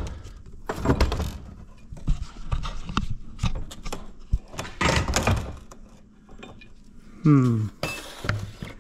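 Irregular metal clunks, clinks and scrapes as a loader's hydraulic cylinder rod and piston are worked in the steel barrel on a metal bench. The piston is binding on one side against the new filler ring.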